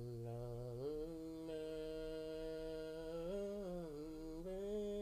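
Wordless hummed vocal line from a song: one voice holding long notes that step up and down in pitch a few times.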